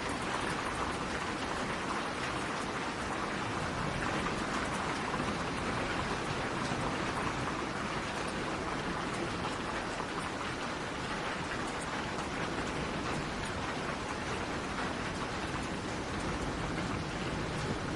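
Steady rainfall: an even hiss of rain with scattered drops pattering on a surface.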